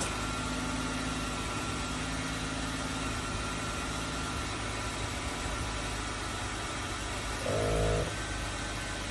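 Jeep Wrangler JK's V6 engine idling steadily, with one short louder tone lasting about half a second around seven and a half seconds in.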